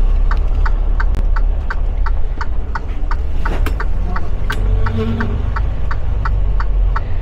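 Semi truck's diesel engine running with a low rumble inside the cab as the truck backs up, with a steady clicking about three times a second.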